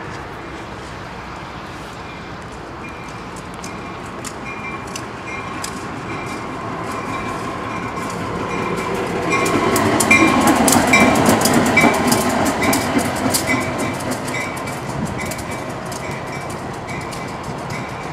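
Union Pacific yard diesel locomotive UPY 702 passing by. Its engine grows louder to a peak about ten seconds in and then fades as it moves on. Wheels click over the rail joints, and a high ringing repeats about twice a second.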